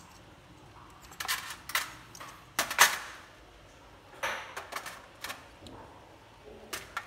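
Brass mainspring barrels from an antique clock movement handled and set down on the workbench: several short clusters of metallic clicks and clinks, the loudest about three seconds in.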